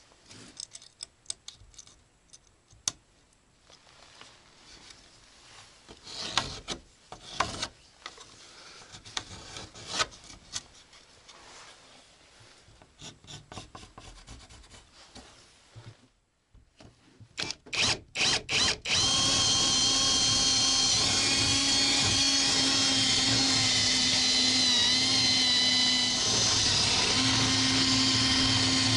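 Cordless drill boring a ventilation hole into wood. First scattered knocks and handling noises, then a few short starts of the drill, and from about two-thirds of the way in the drill runs steadily, its whine wavering slightly as the bit bites.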